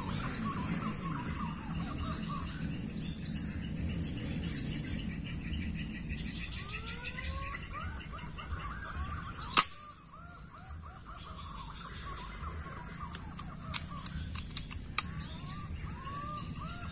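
A single sharp air-rifle shot about halfway through, over forest ambience. The ambience is a steady high-pitched insect buzz and birds calling again and again. A few faint clicks follow the shot.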